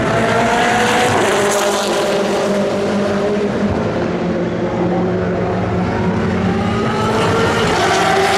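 Endurance race cars running past at speed. Several engines sound at once, one note rising to a peak about a second in and then dropping away, another rising again near the end as the next car approaches.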